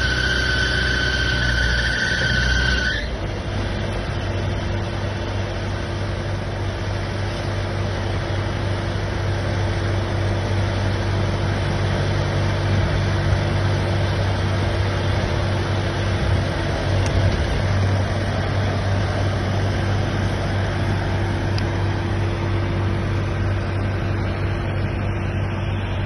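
Police water cannon truck running as it sprays, a steady engine and pump drone under the even hiss of the water jet. A high steady whine during the first three seconds stops suddenly.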